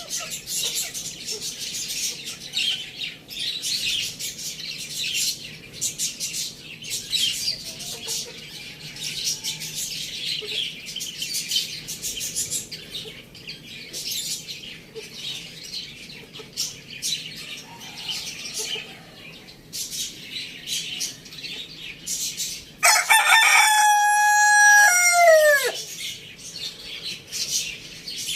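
Constant high-pitched chirping of many small birds. About 23 seconds in, a rooster gives one long crow of about three seconds, the loudest sound, with its pitch falling at the end.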